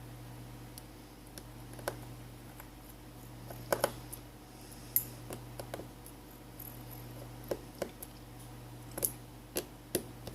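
Irregular small clicks and taps as a screwdriver works out the tiny screws holding a smartphone's inner frame, over a steady low hum.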